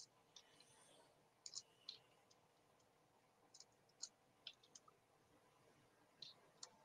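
Faint computer keyboard keystrokes: irregular, scattered clicks in small clusters as a short phrase is typed.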